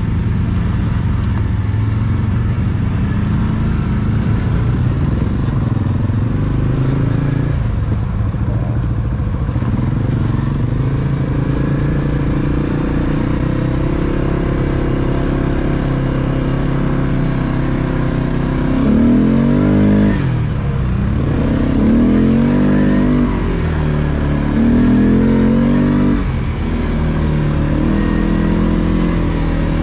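ATV engine running steadily under load on a rutted dirt trail, heard up close from on board. Around two-thirds of the way through the throttle is opened three times, the engine pitch rising and falling with each.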